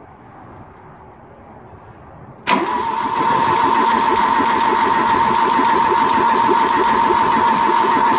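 Starter motor cranking a 2.0 Ford Pinto SOHC engine with its spark plugs out, so it spins freely with no compression strokes. The cranking starts suddenly about two and a half seconds in and runs steadily, with a steady whine over a fast even rhythm. The engine is being turned over to prime its oil system.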